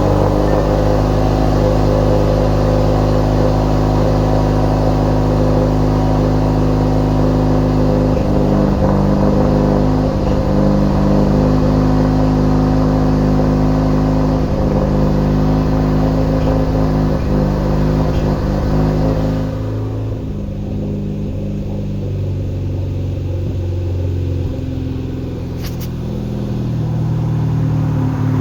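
2016 Hyundai Veloster Turbo R-Spec's turbocharged 1.6-litre four-cylinder engine running steadily, the car recorded for a chirping noise it makes. About 20 s in the sound turns duller as the higher part drops away.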